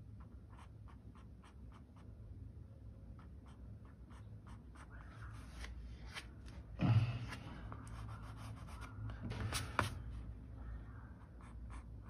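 Mechanical pencil sketching on paper: short, light scratching strokes, a few a second. A louder bump and rustle comes about seven seconds in and again near ten seconds, as the hand and paper are handled.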